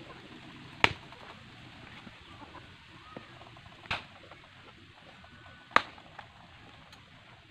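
Bolo knife chopping into a bamboo shoot on a wooden block: three sharp chops, about a second in, near four seconds and near six seconds, with a few lighter knocks between them.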